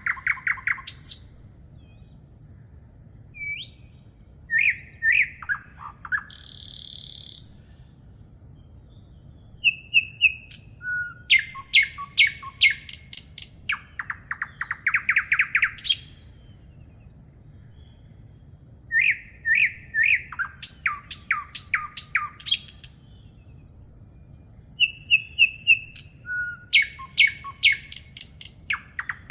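A songbird singing, several times over: phrases of short whistled notes that run into a fast trill, with pauses of a few seconds between phrases.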